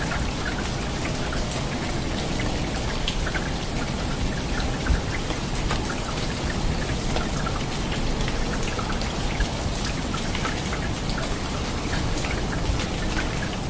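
Steady rain with many individual raindrops striking a surface, heard as separate drops over a continuous hiss. One drop about five seconds in is louder than the rest.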